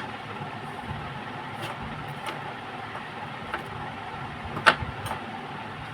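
Steady background hum on a repair bench with a few small clicks and taps, the sharpest nearly five seconds in.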